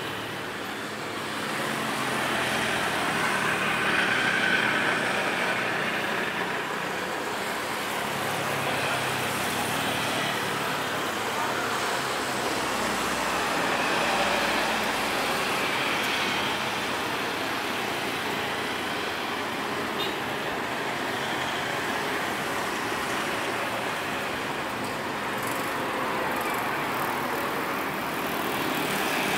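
Steady engine and traffic noise that swells and eases off a few times.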